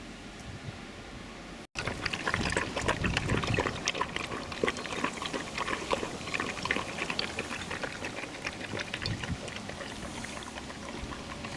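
Irish wolfhound puppies lapping milk from a ceramic bowl: a rapid, continuous run of wet lapping clicks that starts about two seconds in.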